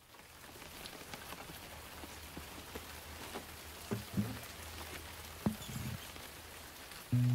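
Steady rain falling, with scattered drips. About halfway through come a few soft knocks as an acoustic guitar is picked up, and guitar music starts right at the end.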